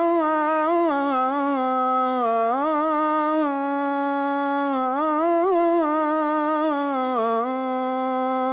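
A muezzin's voice chanting the adhan (call to prayer), holding one long ornamented line on 'hayya ʿala l-falah' without a break. The pitch wavers, rising and dipping several times.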